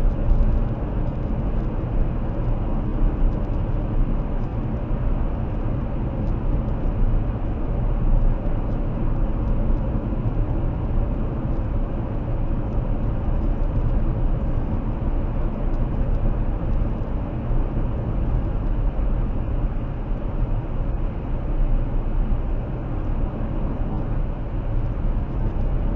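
Steady road and tyre noise of a Toyota Prius cruising at about 60 mph, heard from inside the cabin as a low, even rumble.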